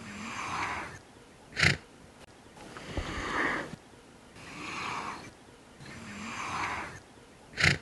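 Giraffe breathing and snorting: slow breathy snuffles, broken by a short, sharp snort about a second and a half in and another at the very end.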